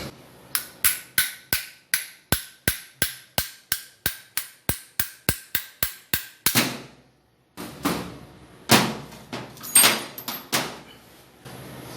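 Hammer tapping rapidly on the stuck metal cap over a washing machine mechanism's lower bearing, about twenty sharp, ringing metal-on-metal strikes at roughly three a second, to knock the cap loose. After a short pause come a few heavier, irregular knocks and clatter as the part is worked free.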